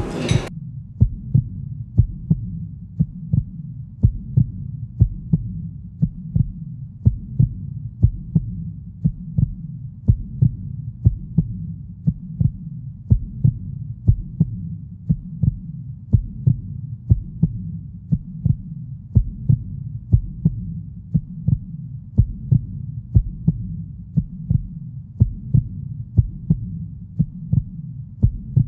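A low, even thumping pulse, about two beats a second with some beats in close pairs, over a steady low hum.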